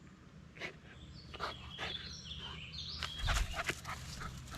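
Dog moving about among sticks and brush, making scattered crunches and snaps, over a low steady hum.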